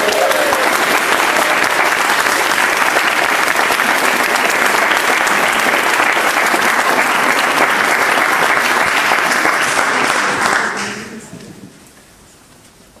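A congregation applauding and clapping steadily for a newly married couple, then dying away about eleven seconds in.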